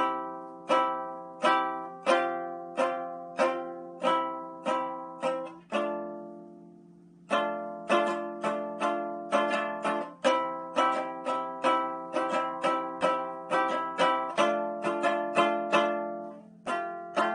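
Handmade six-string Viking lyre, tuned A, C, D, E, F, G, strummed in a steady run of chords, each ringing and fading. One chord is left to ring out about six seconds in, then the strumming picks up pace.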